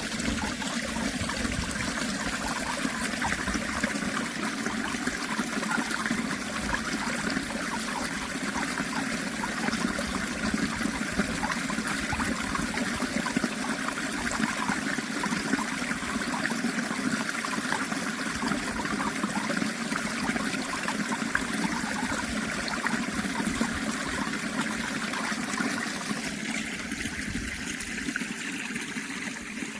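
Running water of a small stream trickling steadily, a little thinner near the end.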